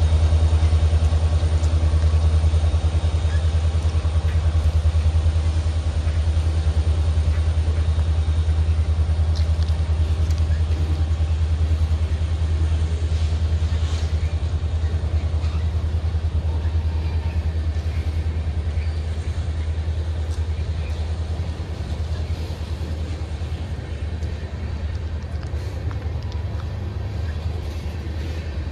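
Diesel freight locomotive engines running with a steady low drone, which slowly fades over the last several seconds.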